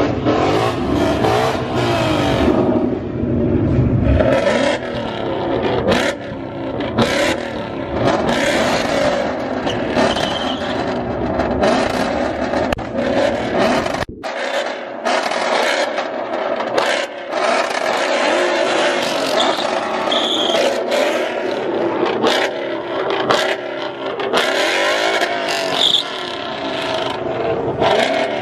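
Ford Mustang engines revving hard through loud exhausts, pitch rising and falling, with many sharp exhaust pops and bangs. The deep rumble drops away about halfway through while the revving and cracking go on.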